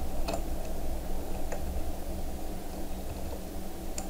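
A few computer keyboard key clicks over a steady low background hum: one key press just after the start, a fainter one about a second and a half in, and typing beginning near the end.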